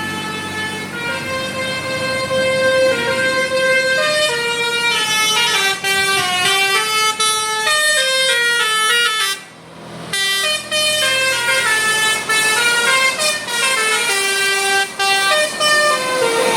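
Bus telolet basuri horn, a set of electric air-horn trumpets, playing a melody of held notes that step up and down, several sounding at once, with a short break about nine and a half seconds in.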